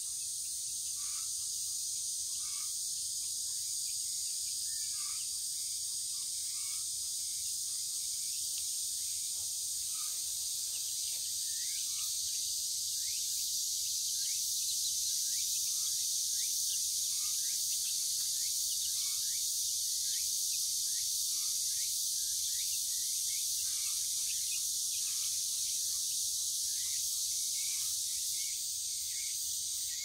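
Steady high-pitched chorus of cicadas, with young chicks peeping over it in short falling chirps, more often in the second half.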